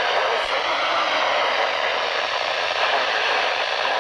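A steady, even hiss with no breaks and no change in level.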